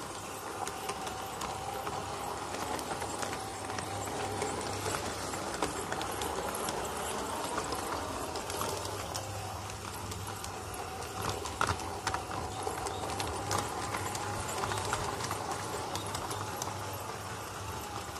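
LGB U-Lok model steam locomotive running along its track: a steady motor and gear whine, with sharp irregular clicks and clatter from the wheels on the rails.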